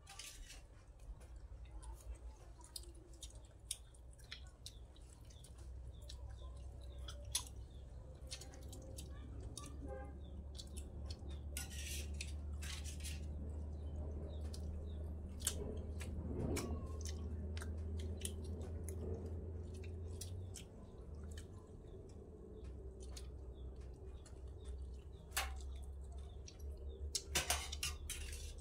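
Several people eating soupy curry from a metal tray: chewing and lip-smacking, with spoons clicking against the metal now and then, over a low steady hum.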